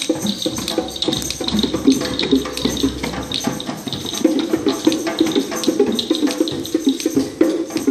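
A group playing hand percussion at once, shakers and djembes among them, making a dense, continuous rattle of many small taps that sounds like running water or rain.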